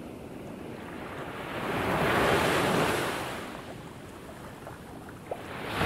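Ocean surf sound effect under a logo animation: a rush of noise swells about two seconds in, fades, and swells again near the end, like waves washing in.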